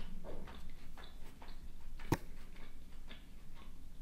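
Close-miked chewing with soft wet mouth clicks, and one sharper click about two seconds in.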